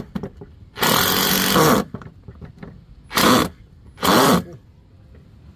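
Power drill driving screws into wood in bursts: one run about a second long, then two short pulses near the end as the screw is snugged down.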